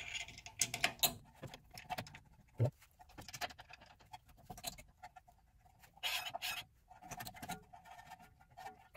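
Hands fitting the 13 mm bolts to a brake caliper: irregular light metallic clicks and scrapes, with a duller knock a little over two seconds in.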